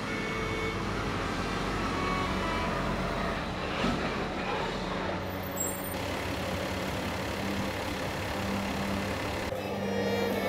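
Steady road-traffic rumble from heavy vehicles. Bowed-string music comes in near the end.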